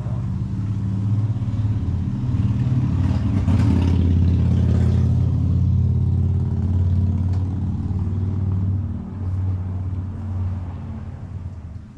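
A motor vehicle's engine running close by, a low steady hum that grows louder toward the middle and then fades.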